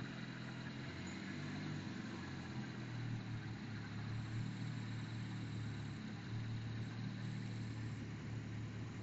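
Freshly rebuilt Cosworth engine idling steadily on its first start-up run, with a low, even tone that firms up slightly a couple of seconds in.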